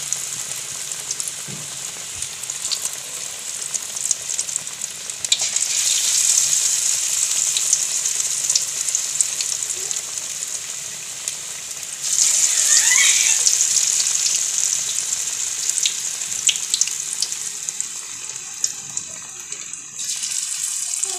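Bread pakoras deep-frying in hot oil in an aluminium kadhai on a low flame: a steady, high sizzle thick with crackles. It grows louder about six seconds in and again about twelve seconds in, and swells once more near the end as another batter-coated piece is lowered into the oil.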